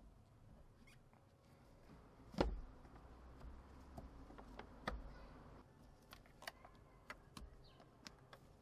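Faint clicks and knocks of a plastic air filter box and intake hose being fitted back in place by hand, with two louder knocks about two and a half and five seconds in and scattered light clicks after.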